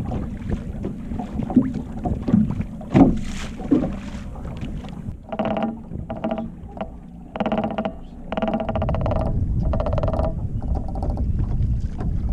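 Wind and water noise on an open fishing boat, with scattered knocks from gear being handled and a loud knock about three seconds in. From about five seconds in comes a run of short, steady-pitched mechanical whirring spurts, each under a second long, over a low rumble.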